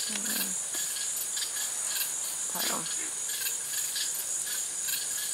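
Crickets and other insects calling: a steady high buzz with chirps pulsing about three times a second.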